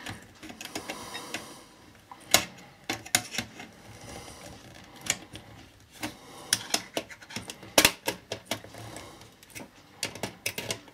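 Irregular clicks and snaps as pliers and fingers work the tabs holding a hard-drive bracket inside a satellite set-top box's sheet-metal chassis; the sharpest click comes about three-quarters of the way in.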